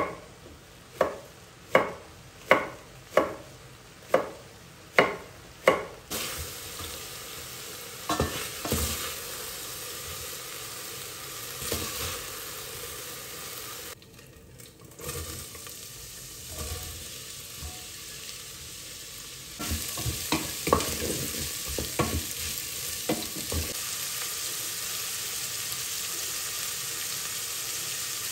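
A knife chops a green chili on a bamboo cutting board, about eight even strokes in the first six seconds. Then oil and spices sizzle steadily in a stainless steel pot. The sizzle gets louder past the middle as sliced green beans and onion go in, with a few knocks and clatters.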